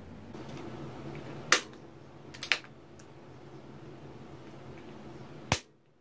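A few sharp clicks from switching and handling the plug-in relays and switchgear on a 24 V DC relay test board: one about a second and a half in, a quick double click near two and a half seconds, and the loudest near the end, as the relay coil's supply current drops to zero.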